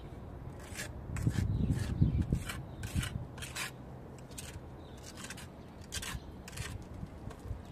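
Small steel trowel scooping cement plaster and scraping it onto a rough concrete-block wall, in about a dozen short, irregular strokes.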